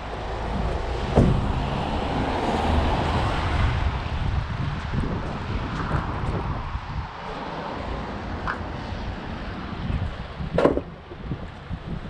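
Wind buffeting an unshielded microphone, an uneven low rumble with a rushing haze over it. There is a sharp knock about a second in and another near the end.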